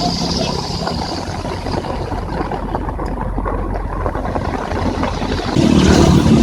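Heavy rain falling, a dense spatter of drops over a low traffic rumble. Near the end a vehicle on the highway comes close and its engine and tyre noise grow clearly louder.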